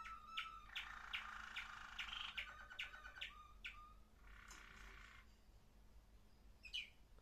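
Waterslager Malinois canary singing: sharp chips and fast rattling trills in several short phrases, followed by a pause and then a single chirp near the end.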